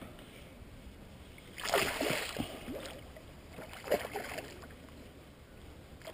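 A hooked saratoga thrashing and splashing at the water's surface beside a canoe while it is played on a fishing line. The splashing comes in bursts: the loudest lasts about a second, starting just under two seconds in, a shorter one comes around four seconds, and more begins at the very end.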